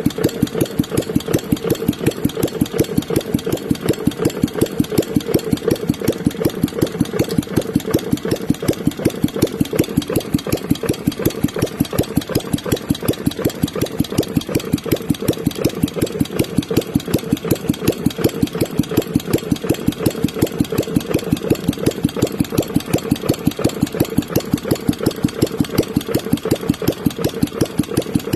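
Restored Bernard W 810 engine running steadily at idle on a bench stand, with an even, regular firing beat.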